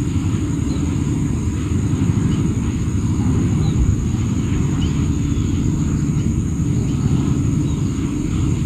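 Wind rumbling on the microphone, a steady low buffeting noise, with a thin continuous high-pitched hum and a few faint short chirps over it.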